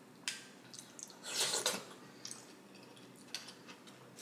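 Wet squelching and sharp clicks of fingers picking mussels out of butter sauce in a glass bowl, with a louder wet smacking burst about a second and a half in.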